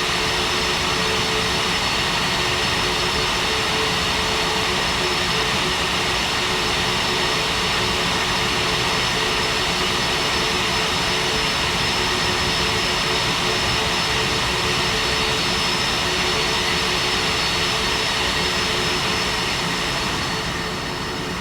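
Jet airliner engines running steadily at low taxi power: a constant rush of noise with a steady high whine, easing off slightly near the end.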